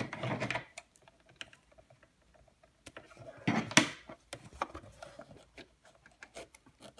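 Light clicks and rustles of fabric and elastic band being handled and repositioned at a sewing machine, with a short burst of noise at the start and a louder rustling thump about three and a half seconds in.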